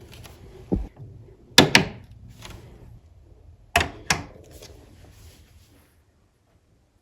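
Hard clacks and knocks with short ringing: a dull thump, then two quick pairs of sharp knocks, as a light 3D-printed dino skull is set onto its brass stand and coupled by its stud nuts to the magnets.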